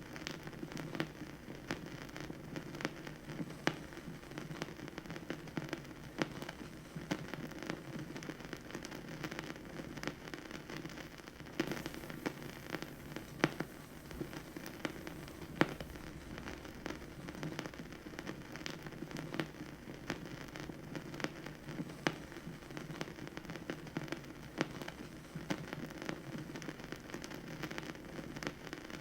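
Vinyl record surface noise on a record player: a steady low rumble and hiss under frequent, irregular crackles and small pops, with one louder pop about halfway through.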